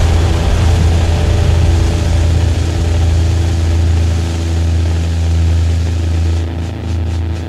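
A loud, steady low drone made of several held tones, easing slightly about four seconds in.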